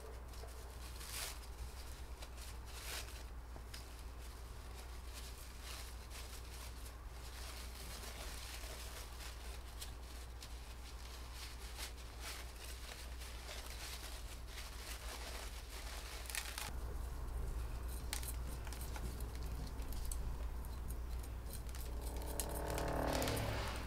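Paper wrapping rustling and crinkling in irregular short bursts as succulent cuttings are unwrapped and handled, over a steady low hum, with a short pitched tone near the end.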